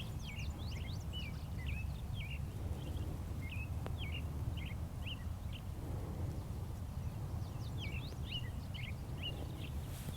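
Small birds chirping in quick, short notes, in clusters near the start and again near the end, over a steady low outdoor rumble.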